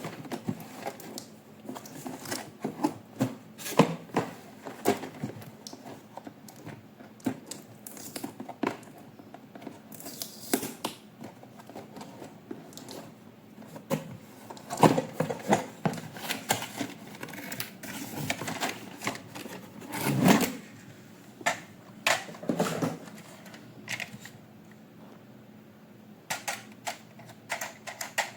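Irregular clicks, taps and clatters of hard plastic toy parts being handled, with a louder knock about twenty seconds in.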